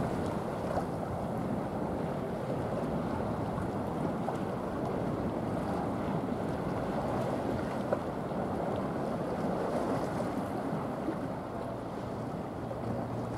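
Steady wind noise on the microphone over a wash of water.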